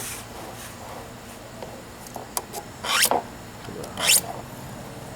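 Two short scraping strokes of a knife scoring a cut mark on a vinyl rain gutter, about three and four seconds in.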